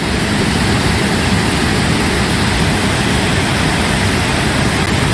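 Kaveri river in heavy flood pouring over rocky waterfalls: a loud, steady rush of white water that comes in abruptly at the start.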